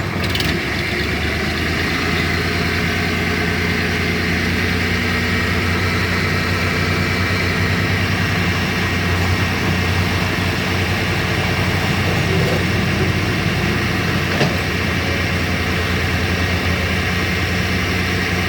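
An engine running steadily at idle, an even low hum with no change in speed.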